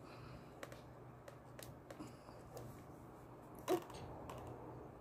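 Faint clicks and taps of a small glass dropper bottle of diffuser oil being handled and worked open, with one louder click about three and a half seconds in.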